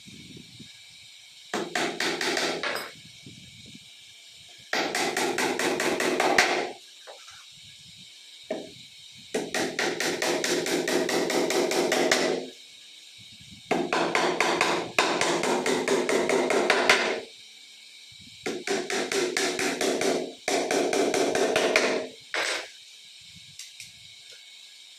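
Hammer striking a laminated particleboard table top in six runs of rapid taps, about eight a second, each run lasting one to three seconds with short pauses between.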